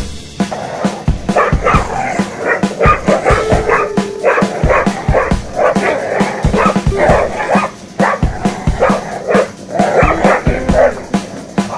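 Dogs barking and yipping in rapid short bursts during a game of tug of war, over background music with a steady beat.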